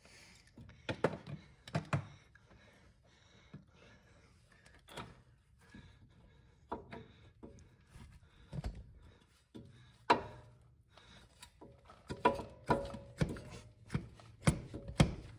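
Irregular metal knocks and clunks, some with a short ringing tone, as a long bar is worked against a new CV axle to push its inner end into the differential. The knocks come closer together in the last few seconds. The axle does not seat.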